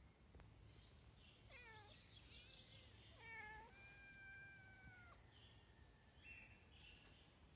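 Several stray cats meowing for food: a bending meow about one and a half seconds in, a short one just after three seconds, then one long, level meow lasting over a second.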